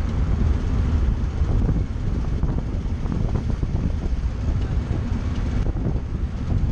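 Wind buffeting the microphone of a bike-mounted camera on a road bike at about 30 km/h: a steady, loud, low rumble with road noise from the tyres.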